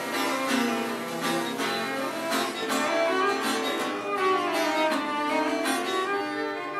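Cello and acoustic guitar playing a duet: the guitar plucks notes while the cello plays bowed notes beneath it.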